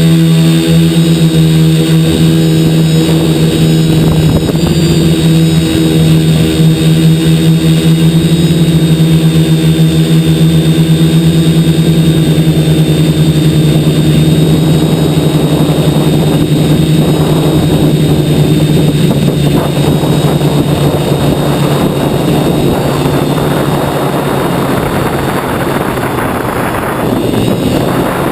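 Quadcopter's 2212 brushless motors and propellers running in flight, a steady buzzing hum, with wind rushing over the body that builds through the second half.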